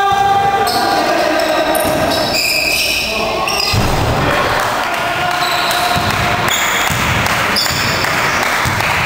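Basketball game in a sports hall: the ball bouncing on the court, short high sneaker squeaks, and players and spectators calling out.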